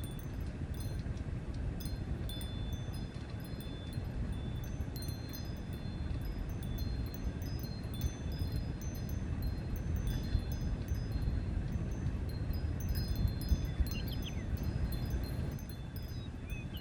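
Layered ambience soundscape: many short, high tinkling notes at several pitches over a steady low rumble, with a couple of quick bird chirps near the end.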